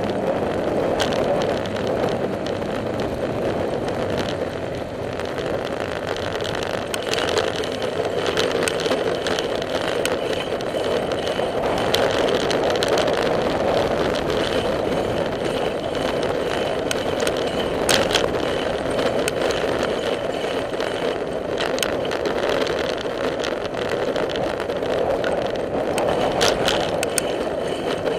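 Steady rushing noise of a bicycle ride on a paved path, wind and tyre noise, with scattered clicks and rattles from the bike, the sharpest about two-thirds of the way through.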